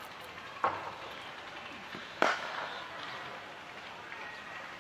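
A cricket bat striking the ball with a sharp crack a little over two seconds in, the loudest sound, after a fainter knock about half a second in. Faint steady outdoor background noise throughout.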